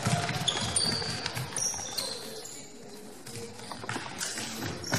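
Indoor football players' shoes squeaking on a sports hall floor: several short high squeaks of varying pitch, mostly in the first half, with a few thuds near the start.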